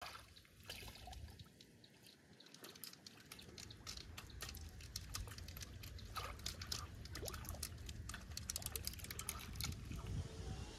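Bare feet wading through shallow pond water, sloshing and splashing. The small splashes and drips come sparsely at first, then in a quick dense run from about four seconds in.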